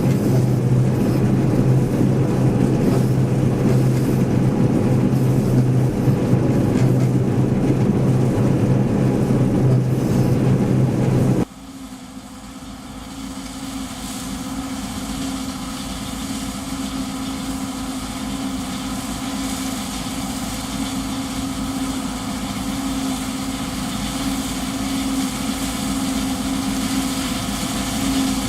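John Deere 1075 combine harvester running steadily with a deep, loud drone. About eleven seconds in the sound changes abruptly to a quieter, higher-pitched machine hum that slowly grows louder.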